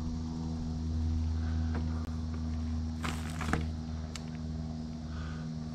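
A steady low machine hum made of several even tones, with a short rustle about three seconds in.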